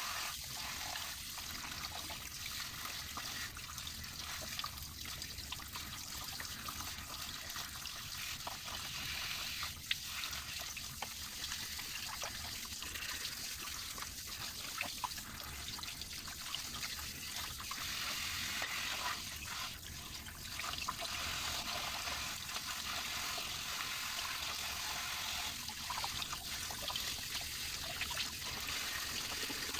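Water running and trickling steadily, with scattered light clicks and knocks throughout.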